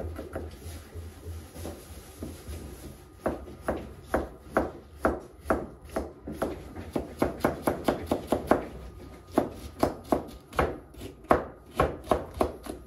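Knife chopping food on a cutting board: a long run of sharp strokes, about two to four a second, with brief pauses between runs.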